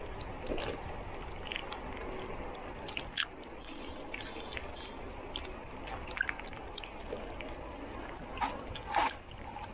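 Polygon Xtrada 5 mountain bike rolling down a concrete lane: steady tyre-on-concrete rolling noise with scattered sharp clicks and rattles from the bike, loudest about three seconds in and again near the end.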